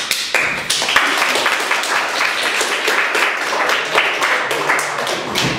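A roomful of people applauding, a dense steady patter of clapping that stops near the end.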